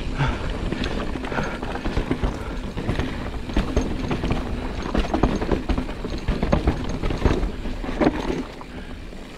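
Giant Reign 29 mountain bike rattling and clattering over rough singletrack, with a dense run of irregular knocks from the tyres, suspension and chain over a low rumble. It eases off a little near the end.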